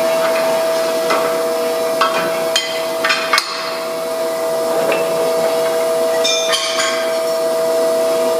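Rectangular steel tube being slid and seated against a metal-cutting saw's vise jaw: a cluster of metallic knocks and scrapes about two to three and a half seconds in and another near six and a half seconds. A steady machine hum runs underneath.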